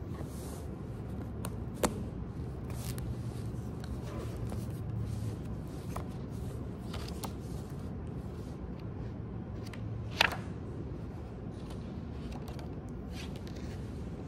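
Paper pages of a small hardcover sketchbook rustling as they are leafed through, with light clicks and two sharp taps, one about two seconds in and one about ten seconds in, over a low steady hum.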